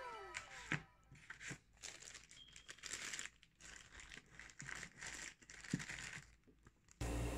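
Plastic packaging crinkling as a hand rummages through bagged microphone parts in a cardboard box: irregular rustles with a few light clicks. It cuts abruptly to a steady low hum near the end.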